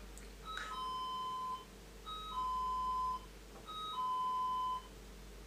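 Electronic doorbell chime ringing three times, each ring a short higher note stepping down to a longer lower one: a caller ringing at the door.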